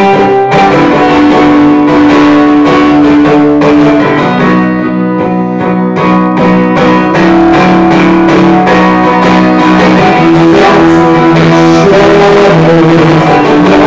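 Acoustic guitar strummed in an instrumental passage of a song, chords ringing, with a softer, sparser stretch about five seconds in.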